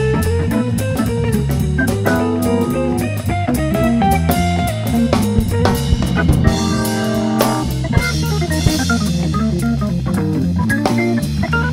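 Live soul-jazz band playing a steady funk groove: drum kit with cymbals, bass, electric guitar and Hammond organ, with held organ chords in places.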